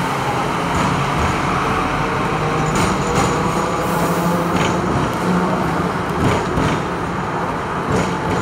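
Hong Kong double-decker electric tram running along its street track, heard from on board: a steady hum and rumble of the motor and wheels on the rails, with a few brief clicks and rattles.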